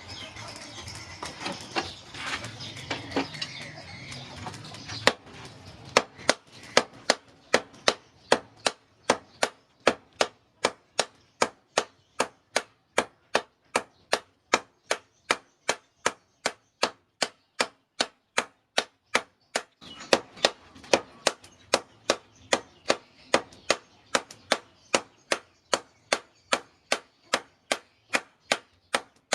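Blacksmith's hammer striking steel on an anvil while forging a knife blade. After a few scattered knocks and clinks, the blows settle into a steady rhythm of about two strikes a second, with a short pause about two-thirds of the way through.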